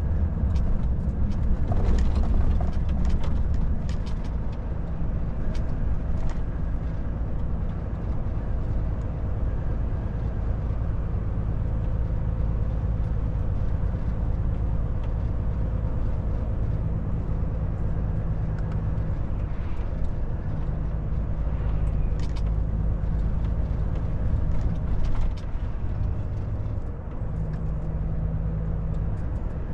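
Volvo FH truck's diesel engine droning steadily while cruising at about 70 km/h, heard inside the cab together with tyre and road noise. A few light ticks or rattles come through, mostly near the start and about two-thirds of the way in.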